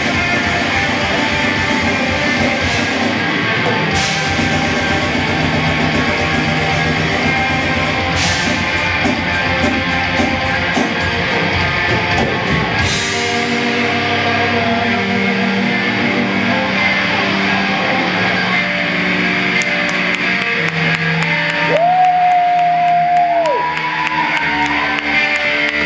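Live rock band with two electric guitars, bass and drums playing loudly, with cymbal crashes in the first half. About halfway through the playing thins to long held guitar and bass notes, and near the end a single guitar tone is held and bent before falling away.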